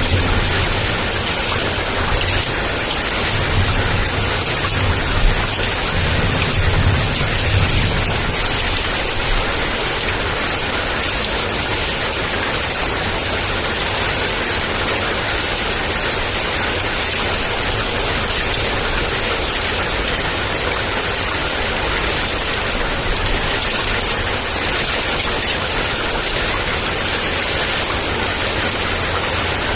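Heavy rain falling in a steady, dense hiss. A low rumble of thunder dies away over the first several seconds.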